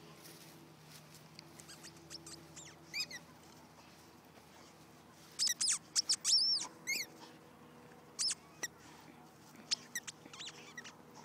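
A squeaky ball toy squeaking as a pitbull puppy chews and squeezes it in its jaws: short high-pitched squeaks that rise and fall, coming in several clusters, loudest about halfway through.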